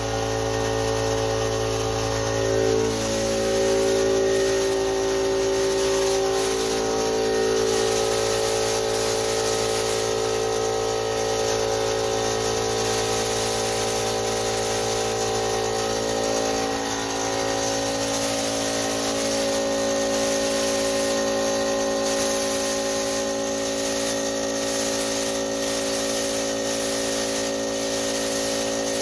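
Air compressor running steadily, its motor hum wavering slightly in pitch, under the hiss of a compressed-air paint spray gun spraying paint onto a wooden cabinet.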